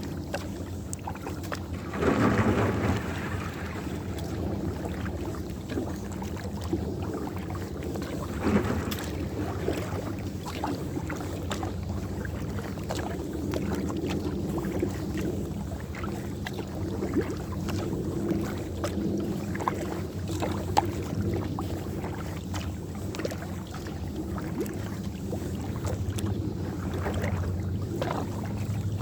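A kayak on open lake water: a steady low rumble of water and wind on the microphone, with a few louder water swishes, the loudest about two seconds in.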